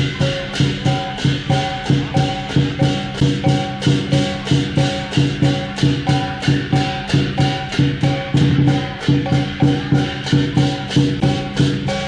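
Chinese lion dance percussion: a big drum, cymbals and a gong playing a steady, driving beat of about four strokes a second.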